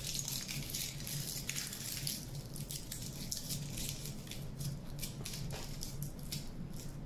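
Aluminium foil crinkling and crackling as it is squeezed and pressed by hand onto a sculpture armature, with a steady low hum underneath.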